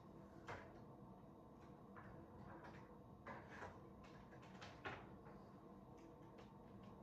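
Near silence, broken by a few faint clicks and knocks over a low, steady background hum.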